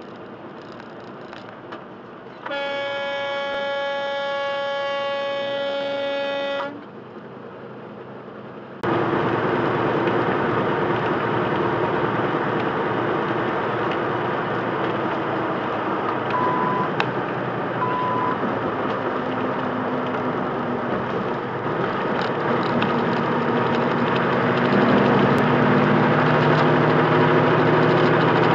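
A truck air horn blown in one long blast of about four seconds. Then steady semi-truck cab noise, engine and tyres at highway speed, with two short beeps from the truck's collision-warning radar about halfway through.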